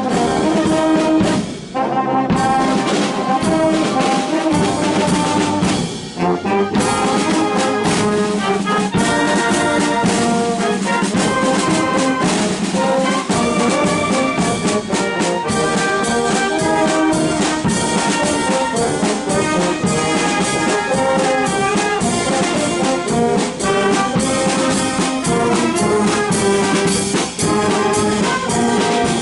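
Filarmónica wind band playing, with brass to the fore. The music drops out briefly twice in the first six seconds, then runs on steadily.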